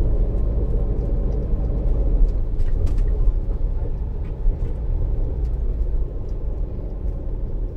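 Inside the passenger cabin of a Neoplan Tourliner coach on the road: a steady low engine and road rumble, with a few faint rattles about three seconds in. It eases slightly toward the end.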